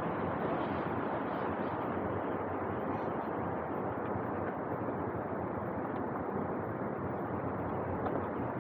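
Steady, even background noise with no distinct events in it.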